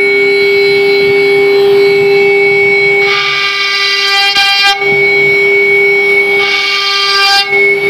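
CNC router spindle running at high speed with a steady whine while its carving bit cuts into a board. Twice the sound turns louder and harsher with many tones: about three seconds in, for nearly two seconds, and again near the end, for about a second. This happens as the bit bites deeper into the material.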